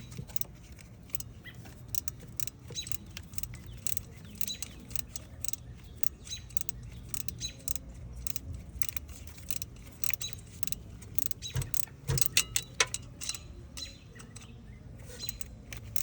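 Snap-on BXOR704 25° offset ratcheting box wrench clicking as it turns bolts by hand, in quick irregular runs of small ratchet clicks, with a few louder knocks about twelve seconds in.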